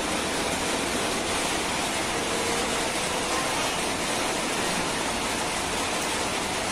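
A steady, even hiss of room noise with no distinct events.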